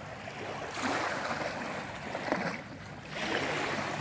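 Water swishing and splashing as small hand paddles are stroked through shallow water beside a small kayak: two strokes, about a second in and again near three seconds.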